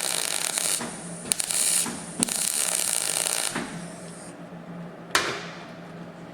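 Short bursts of MIG welding on sheet-steel sill panel: a crackling, sizzling arc, three welds in the first three and a half seconds in on-off stitch fashion to limit the heat. A single sharp click follows about five seconds in.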